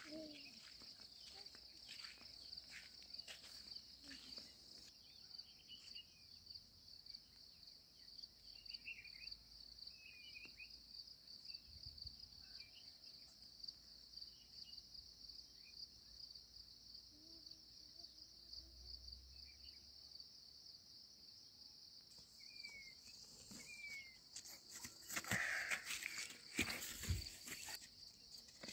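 Steady high-pitched insect drone, like a cricket chorus, with faint short chirps scattered through it. Near the end comes a louder burst of knocks and rustling.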